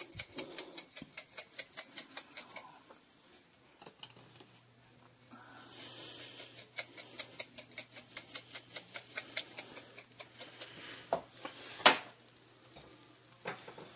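Chili pepper flakes being shaken from a glass shaker jar over a pan of orange chicken: quick rhythmic rattling clicks, about five a second, in two spells with a pause of a few seconds between them, then one sharper click near the end.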